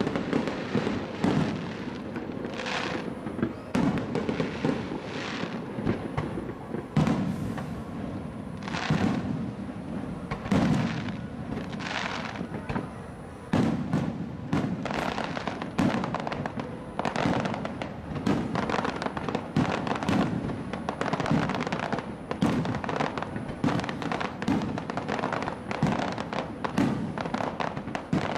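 Aerial fireworks display in its finale barrage: shell bursts banging in quick succession, several a second, with crackling between them.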